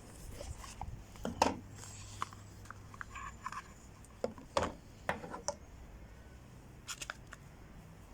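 A small folding knife being handled: a scattering of sharp clicks and short scrapes, the loudest about a second and a half in and again about four and a half seconds in.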